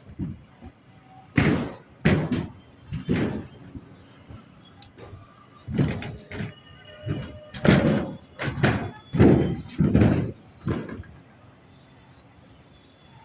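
A series of irregular heavy bangs and thuds, about a dozen, with the densest and loudest cluster in the second half: an excavator striking and breaking concrete.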